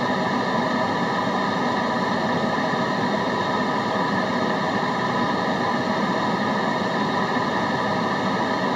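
Steady white-noise track: an even, unchanging hiss.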